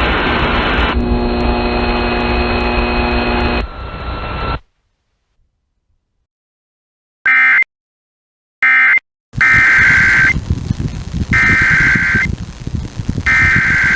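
Emergency Alert System SAME data bursts: two short, raspy warbling bursts about seven seconds in, then three one-second bursts a second apart over a receiver's hiss, the coded header that opens a new alert. Before them a steady buzzing tone runs for a few seconds and then a couple of seconds of silence.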